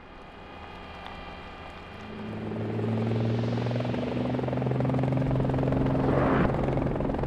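Steady buzzing hum of a small helicopter's spinning rotors, a sound effect for an animated Ingenuity Mars helicopter. It swells in about two seconds in and grows louder toward the end, over faint high steady tones at the start.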